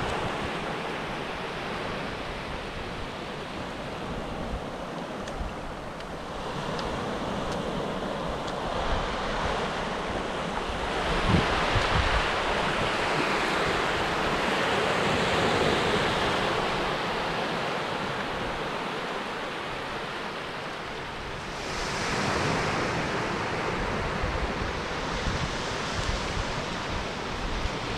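Small waves breaking and washing up a shallow sandy beach. The surf swells louder twice, about a third of the way in and again near the three-quarter mark.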